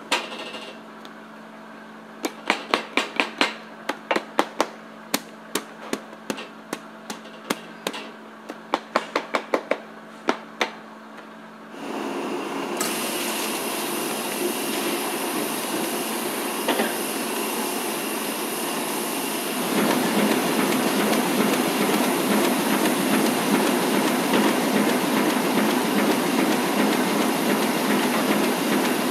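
Sharp, irregular knocks and snaps, about thirty in the first twelve seconds, from stacks of banknote paper sheets being handled at a sheet-fed printing machine over a low hum. Then the sheet-fed machinery starts running steadily and grows louder about twenty seconds in.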